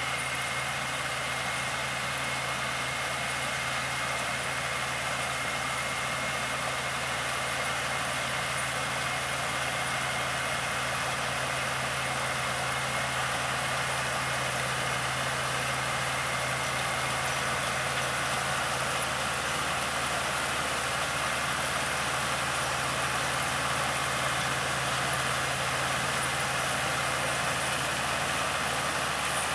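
Case IH tractor engine running steadily as it pulls a Top Air trailed onion harvester lifting and elevating red onions, mixed with the harvester's machinery noise and a truck's engine alongside. A constant high whine runs through the sound.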